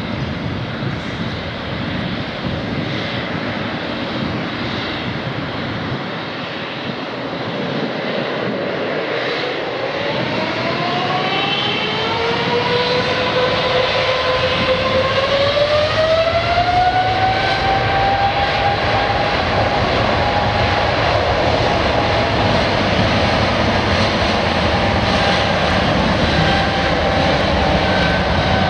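Jet airliner engines spooling up: over a steady rumble, a whine rises in pitch for several seconds from about a third of the way in, then holds level as the sound grows louder.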